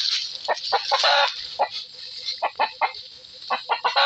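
Chicken clucking in a rapid series of short calls, with one longer, harsher squawk about a second in.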